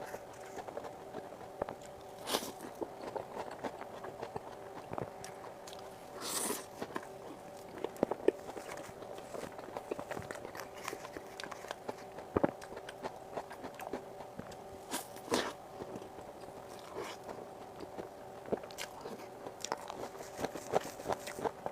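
Close-up eating sounds of whipped cream and cake: irregular wet mouth clicks, smacks and chewing, with a few longer rustling or scraping noises. A faint steady hum with several tones runs underneath.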